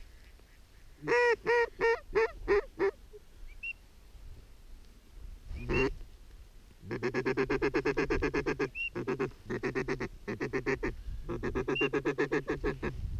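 Duck call blown in mallard hen style. First a hail-type series of about six loud, descending quacks, then from about halfway long runs of rapid, evenly spaced chattering quacks, about ten a second, like a feeding chuckle.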